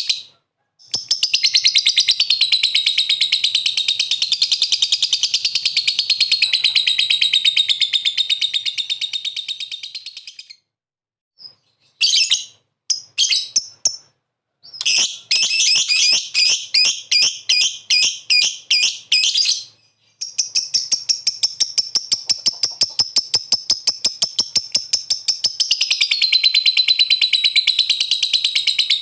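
Lovebird 'ngekek': long runs of rapid, high, chattering notes repeated evenly for several seconds at a time, broken by brief pauses. Around the middle the chatter comes in shorter separate bursts before a long unbroken run resumes.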